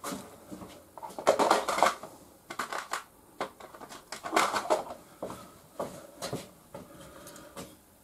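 Small metal parts and tools handled at a workbench: irregular clinks, rattles and scrapes, loudest about a second and a half in and again about four and a half seconds in.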